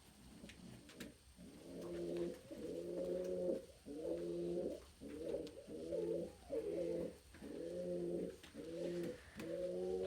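Domestic pigeon cooing: low coos repeated in quick succession, about one a second, starting about a second in. This is typical of a strutting cock pigeon's courtship display coo.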